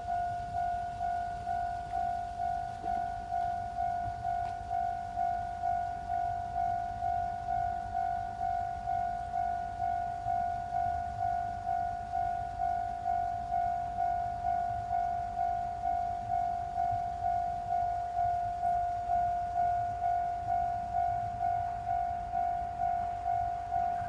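Japanese railway level-crossing warning bell ringing, a single-pitched ding repeated evenly about four times every three seconds, each ring fading before the next: the crossing alarm that signals an approaching train, with the barriers down.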